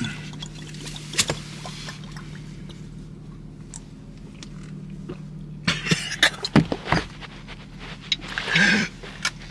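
Steady low hum of a car's cabin with the engine running, with scattered small clicks, a cluster of short sharp noises about six to seven seconds in, and a brief voiced sound near the end.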